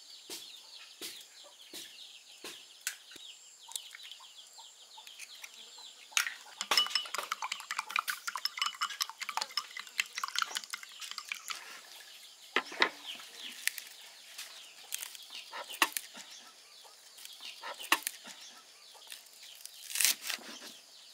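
Eggs cracked into a glass bowl, then beaten fast with wooden chopsticks, a quick run of clicks against the glass. Near the end a kitchen knife chops spring onions on a wooden cutting board with a few sharp strikes. Chickens cluck in the background.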